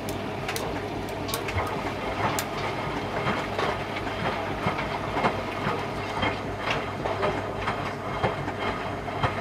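Front-loading washing machine running, with a steady motor hum and irregular clicks and knocks from the turning drum.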